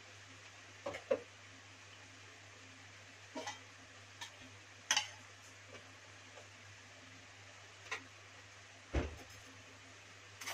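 Chicken pieces cooking in a little oil in an aluminium pressure cooker: a faint hiss with scattered sharp pops and ticks, the loudest about five and nine seconds in, over a steady low hum.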